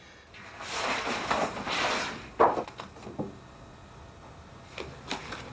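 Sheets of paper rustling as they are handled, loudest in the first two seconds, with a short sharp sound about halfway through and a few softer ones near the end.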